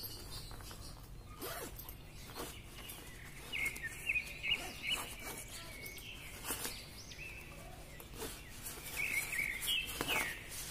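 Nylon carry bag of a pop-up shelter tent rustling and crinkling as it is handled, with scattered sharper crinkles. Birds chirp in the background in two spells, about a third of the way in and again near the end.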